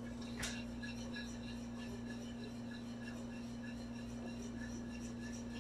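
A wire whisk stirring gravy in a metal saucepan, giving faint irregular light ticks against the pan with one sharper click about half a second in, over a steady low hum.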